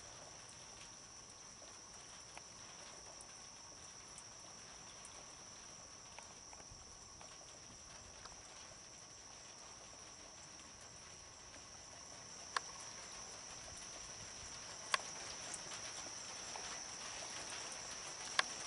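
A steady chorus of night insects, a continuous high-pitched buzz with a fainter lower tone beneath it, growing a little louder in the second half. A few sharp clicks cut through it, three of them standing out, about twelve and a half, fifteen and eighteen seconds in.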